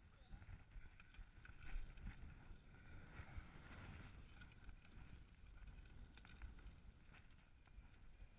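Faint low wind rumble on the helmet microphone, with a few light scattered clicks from a mountain bike's chain and chainring being handled.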